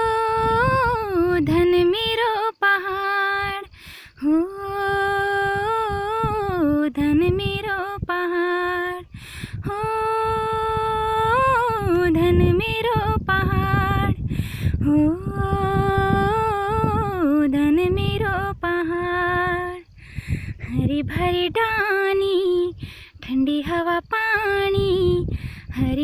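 A woman singing alone, without accompaniment, a slow wordless opening to a Kumaoni folk song. She holds long notes with gliding ornamental turns, in phrases with short breaks between them.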